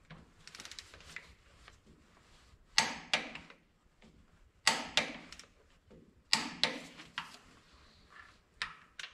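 Torque wrench clicking as connecting-rod cap bolts are pulled to their final torque of 75: three sharp double clicks, with lighter ticks of the wrench being handled between them.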